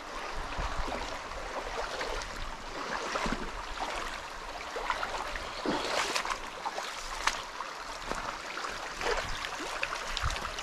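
Shallow spring creek water babbling and trickling over stones in a riffle, with many small irregular splashes.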